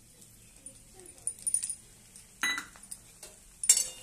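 Steel spoon and utensils clinking against steel cookware while spice powders are added to a pan: a few light clicks, then two sharp metallic clanks that ring briefly, the louder one near the end.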